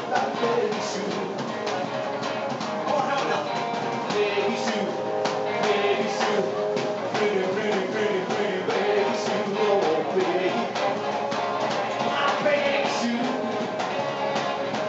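Live rock and roll band playing: electric guitar, upright double bass and drum kit, a steady, loud, unbroken stretch of the song.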